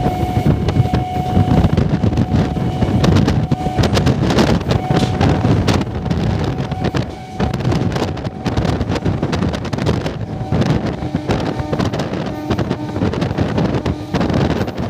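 Wind buffeting the microphone over the clatter and rumble of an electric multiple-unit train's wheels on the rails at about 100 km/h, with irregular knocks as it runs over rail joints and points. A thin steady whine runs through the first half.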